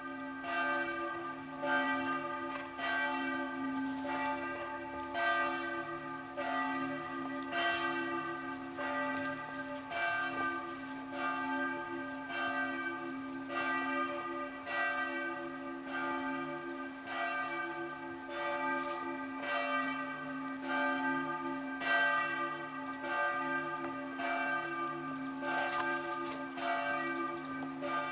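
Bells ringing, a new stroke about once a second at changing pitches, each ringing on over a steady low tone.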